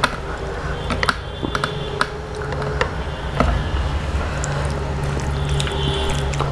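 Bare fingers squishing and mixing wet curry into rice: soft sticky squelches and scattered small clicks, over a steady low hum.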